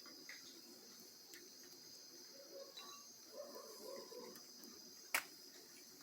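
Crickets chirring steadily in a quiet background, with one sharp click about five seconds in.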